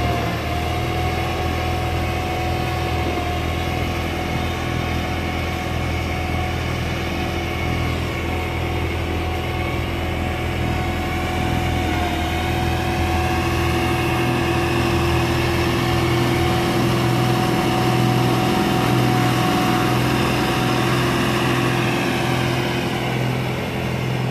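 Massey Ferguson 1736 tractor's three-cylinder diesel engine running steadily under load, driving a two-stage shaft-driven snow blower that is cutting and throwing snow. It grows a little louder as the tractor passes close.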